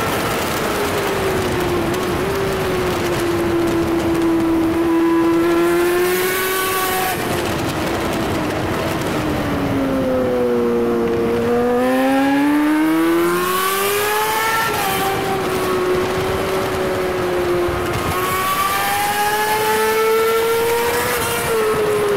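Sportbike engine at high revs, heard from an onboard camera with wind rushing over it. The revs fall under braking about ten seconds in, climb hard out of the corner, and drop sharply at gear changes, once around the middle and again near the end.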